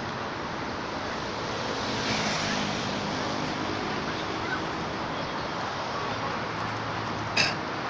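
Steady outdoor background noise, an even hiss and rumble, with a single sharp click near the end.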